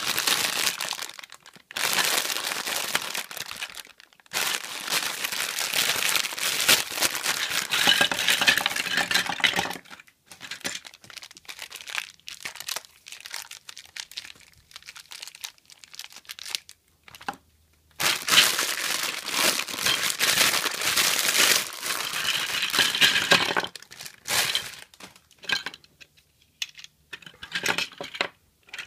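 Clear plastic bags of Lego Duplo bricks crinkling as they are handled and emptied, in two long stretches, with the hard plastic bricks clicking and clattering against each other and the table in between and toward the end.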